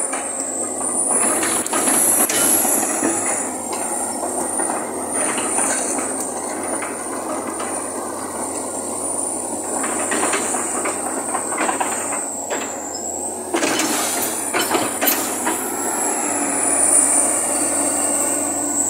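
Komatsu PC200 hydraulic excavator travelling on its steel crawler tracks: the diesel engine runs under load while the tracks clank and rattle, with a few louder knocks. A thin high whine drifts up and down in pitch throughout.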